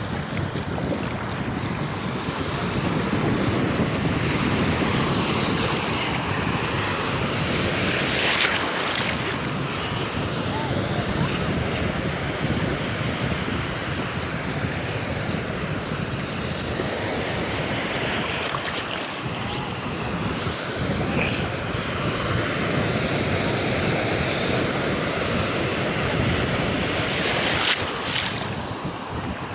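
Sea waves breaking and washing on a beach, a steady rushing surf that swells and eases, with wind buffeting the microphone.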